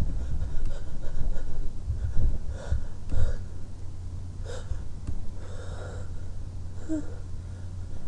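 A person breathing heavily in quick, audible breaths, with a couple of short, low moans, over a steady low hum.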